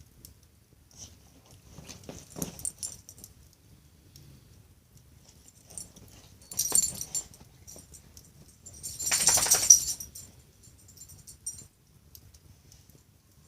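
Wood fire in a fireplace crackling quietly, with three brief louder flare-ups of crackling and hiss. The loudest comes about nine seconds in.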